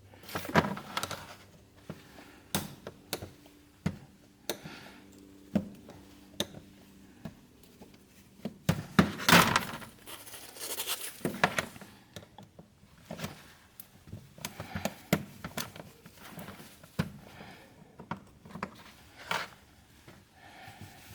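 A knife scraping and prying at a hard-plastic breather hose fitting, with the crinkle of its heat insulation and scattered clicks and knocks. The longest, loudest scraping comes about nine seconds in.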